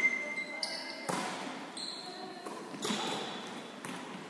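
Volleyball being struck with hands and forearms in an echoing sports hall: a sharp hit about a second in, with further hits around three and four seconds in as the rally goes on.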